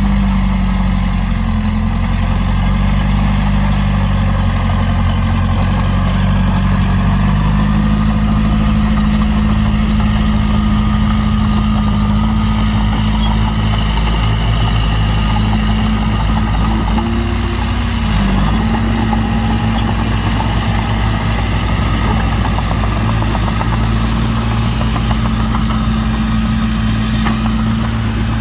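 Heavy diesel engines of earthmoving machines running steadily, with a brief dip in engine pitch about eighteen seconds in.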